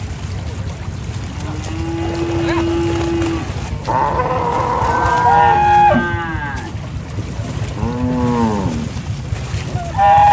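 Zebu bulls mooing, several long calls one after another, some rising and falling in pitch, over a steady low rumble.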